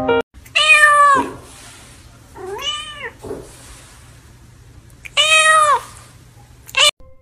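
Domestic cat meowing three times, each meow about half a second long and arching up then down in pitch; the middle one is quieter.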